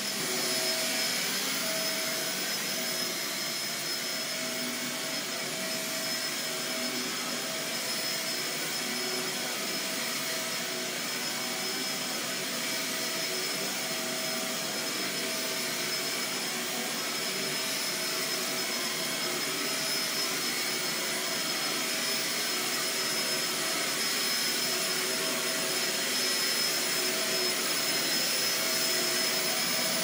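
Shark Navigator Swivel upright vacuum cleaner running steadily on carpet, with a steady high whine over its motor noise.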